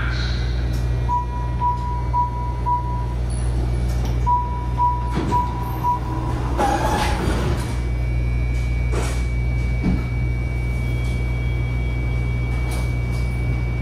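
MARTA rail car's door-closing warning beeps: two runs of evenly spaced high beeps, about two a second. The doors then slide shut with a short rush about seven seconds in, and a steady high whine sets in over the car's constant low hum.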